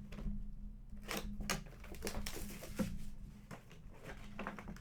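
Packaging of a trading card box being opened and handled: a run of irregular small clicks, crinkles and rustles.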